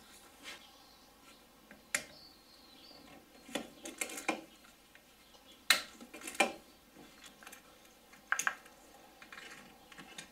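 Scattered light clicks and clinks of plastic connectors and ignition leads being handled as a VW VR6's ignition coil pack is unplugged and worked free by hand.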